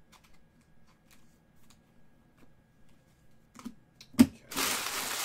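Trading cards handled by hand: faint ticks of cards being flicked through, then a sharp knock about four seconds in, followed by a rustling of cards sliding against each other.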